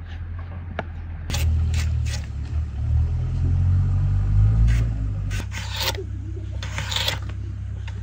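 Handheld stainless-steel slicer cutting raw potatoes on a wooden board: a series of short scraping strokes as the potato is pushed through the blades, the longer strokes near the end. A low rumble runs underneath and swells for a few seconds in the middle.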